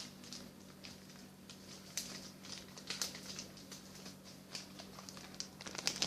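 Faint scattered crinkles and taps of small objects and packaging being handled, over a steady low electrical hum.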